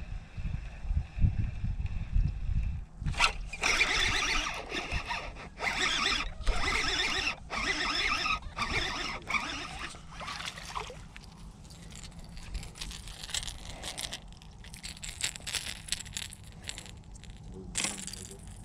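Baitcasting reel being cranked in several bursts of whirring and scraping, each about a second long, as a hooked fish is reeled in.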